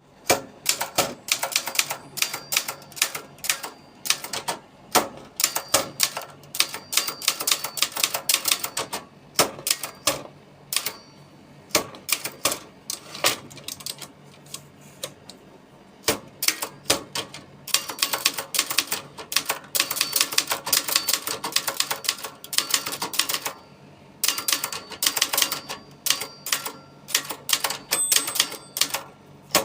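Brother 210 typewriter being typed on: rapid runs of sharp keystroke clacks in bursts, broken by a few short pauses.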